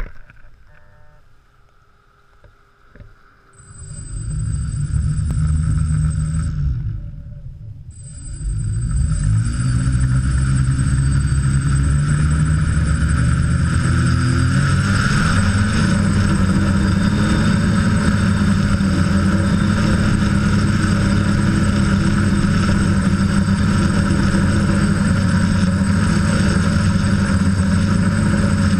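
DJI F550 hexacopter's six brushless motors and propellers, heard from the GoPro mounted on the craft. They spin up about three and a half seconds in, stop for a moment, start again and then run steadily, rising in pitch as the throttle comes up for take-off.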